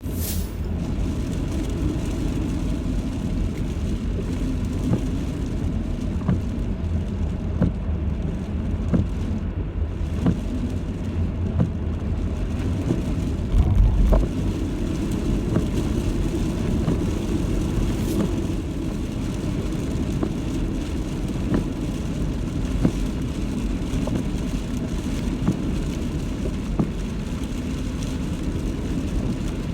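Steady low roar of typhoon wind with scattered knocks, swelling into a heavier gust about 14 seconds in.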